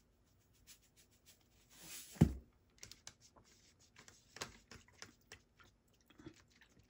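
Salt pouring briefly from a salt canister, then the canister set down with a thump about two seconds in. After that, a scatter of faint clicks and small splashes as the salt water is stirred by hand.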